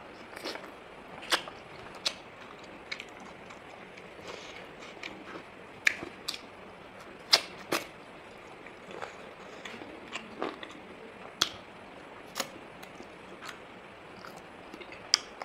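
A person eating chicken wings and rice, chewing with wet mouth smacks: irregular sharp clicks, a second or two apart, over a steady faint hiss.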